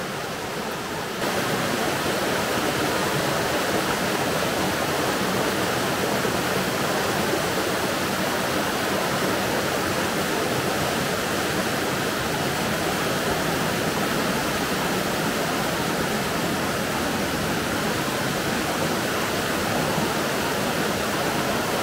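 A small waterfall in a shallow rocky stream, water rushing and splashing steadily over boulders; it grows a little louder about a second in.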